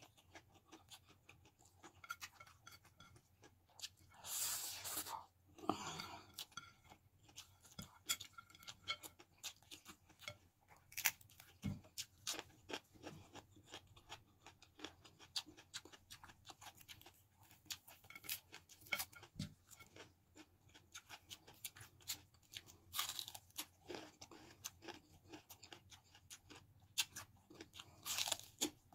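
Close-up eating sounds: many short crunchy chewing clicks with a few longer breathy slurps or breaths. Near the end there is a bite into a raw green bell pepper.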